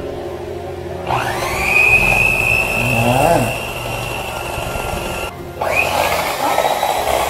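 Electric hand mixer with twin beaters running in a stainless steel bowl of cream and Biscoff spread. It is switched on about a second in, its motor whine rising as it spins up and then holding steady. It stops abruptly a little after five seconds and is started again.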